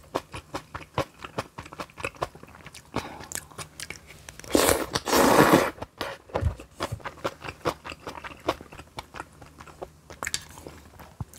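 A person chewing and biting crisp kimchi close to the microphone: many quick crunches, several a second. About halfway through comes a louder noisy stretch lasting about a second.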